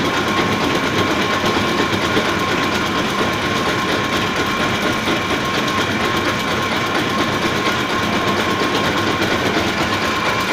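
Round-tofu rolling machine running steadily, driven by two large electric motors: an even, dense mechanical rattle with a steady high whine over it.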